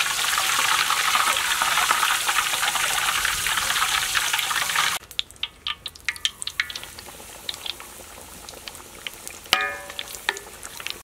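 Breaded mozzarella sticks deep-frying in hot oil: a loud, dense sizzle for about five seconds that cuts off abruptly, then quieter scattered crackles and pops from the oil, with one sharp click near the end.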